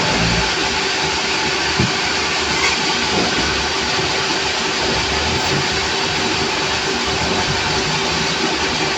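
Sawmill machinery running steadily: a continuous mechanical noise with a constant hum under it.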